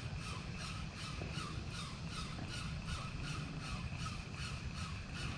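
Ryobi Ultrapower 1000 spinning reel being cranked to retrieve a lure, its gears giving a steady rasping pulse about four times a second, over a low rumble of wind and water on the microphone.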